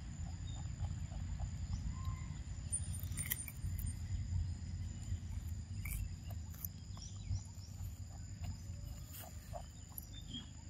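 Insects buzzing steadily at two high pitches over a continuous low rumble, with scattered small clicks and rustles.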